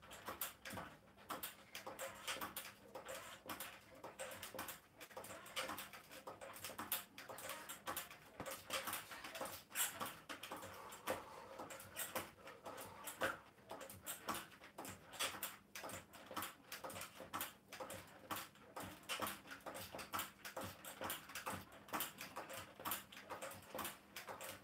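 Mini stepper's pedals clacking and creaking in a steady rhythm under someone stepping on it, about two to three knocks a second.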